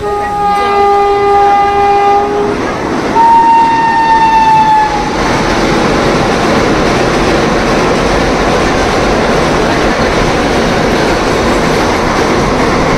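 Train horn sounding twice: a lower, chord-like blast for about two and a half seconds, then a higher blast that sags slightly in pitch. Then an electric-hauled passenger express passing at speed, a steady rumble and clatter of wheels on rail as it crosses a bridge.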